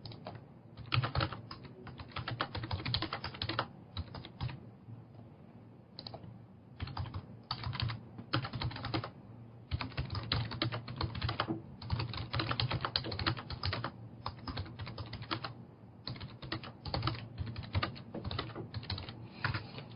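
Computer keyboard typing in quick runs of keystrokes broken by short pauses, typical of an interviewer typing up an answer.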